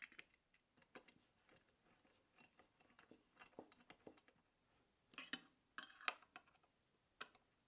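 Faint, irregular clicks and small scrapes of a hand screwdriver turning screws into a metal window-blind mounting bracket, thickest about five to six seconds in.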